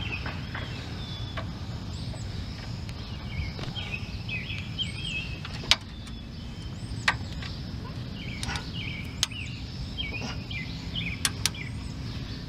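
Torque wrench on the front brake caliper bracket bolts of a 2003 Ford F-150, giving several sharp, separate clicks a second or two apart as the bolts are brought to 136 foot-pounds.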